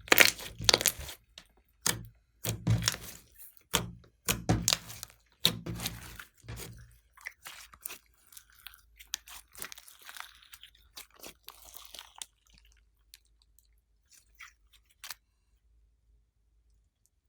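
Glossy slime worked by hand, giving wet, sticky crackling and popping. It is loud and dense for the first seven seconds or so, then thins out to fainter, scattered crackles and stops about two seconds before the end.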